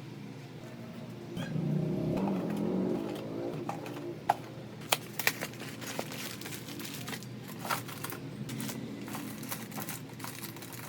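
Groceries and containers being handled and set down while stocking a refrigerator: scattered sharp clicks and knocks, a few louder ones about four to five seconds in, over a low steady hum.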